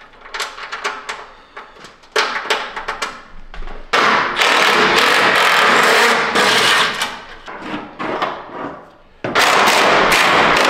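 Cordless impact wrench hammering in repeated bursts as it runs bolts out. A short burst comes about two seconds in, the longest runs about three seconds from about four seconds in, and another starts about nine seconds in.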